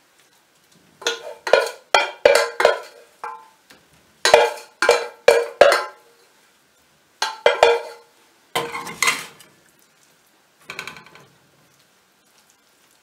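A wooden spoon knocks and scrapes cooked carrot mixture out of an enamel saucepan, the pan ringing briefly with each knock. The knocks come in several quick groups, then stop near the end.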